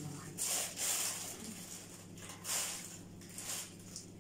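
Plastic bag covering a bowl of dough crinkling in about four short bursts as hands reach under it, with a low steady hum behind.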